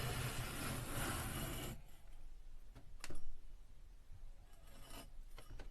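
Scraping, rubbing noise for about two seconds, then a quieter stretch with a few sharp clicks.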